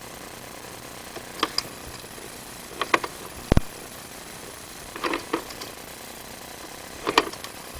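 Irregular clicks and knocks, about half a dozen, with one low thump about three and a half seconds in, over a steady hum: a sewer inspection camera's push cable being fed along a drain pipe and knocking as it goes.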